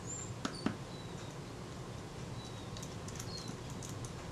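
Faint high bird chirps, short gliding whistles every second or so, over a steady low room hum, with two small sharp clicks about half a second in.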